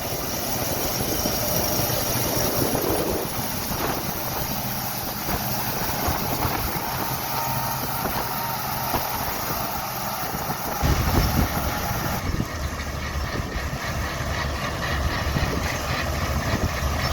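John Deere 95H hillside combine running steadily as it works. About eleven seconds in, the low rumble grows louder.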